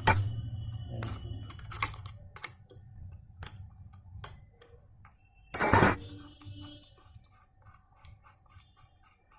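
Metal tools and gearbox parts clinking and tapping while bolts and pins are fitted, with a louder metallic clatter about six seconds in.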